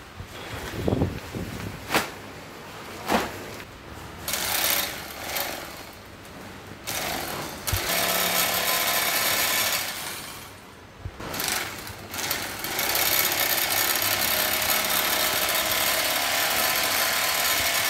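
Portable bag-closing sewing machine stitching the top of a woven plastic sack shut, running steadily from about eight seconds in with a short break near eleven seconds. Before it starts, the plastic sack crinkles and knocks as it is handled into place.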